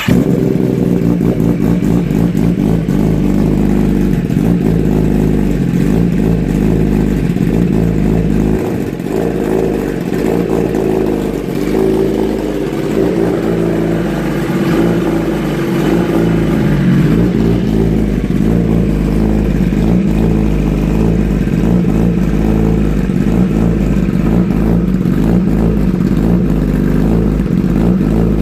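2016 Kawasaki ZX-10R's inline-four engine running just after start-up, heard through a newly fitted Austin Racing GP1R track exhaust. It is loud and steady, with a slight dip about nine seconds in.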